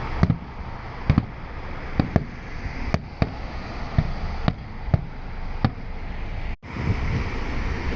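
Fireworks display, with about a dozen sharp bangs at irregular intervals over a steady background noise.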